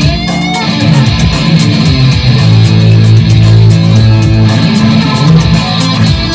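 Electric guitar played loud through effect pedals: quick picked notes with a string bend near the start, then a low note held for about two seconds before the notes pick up again.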